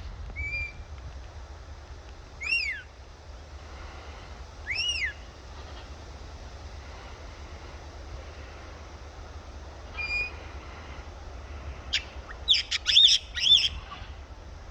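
Pet kites calling: single short calls that rise and fall in pitch about 2.5, 5 and 10 seconds in, then a quick run of several calls near the end. Steady wind rumble on the microphone underneath.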